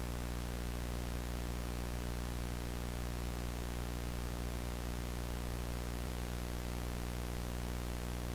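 Steady electrical hum under an even layer of hiss, unchanging throughout.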